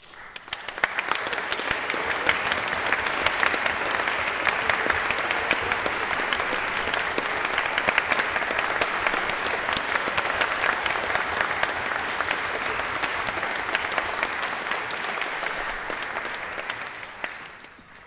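Concert-hall audience applauding: dense clapping that starts suddenly, holds steady, and dies away near the end.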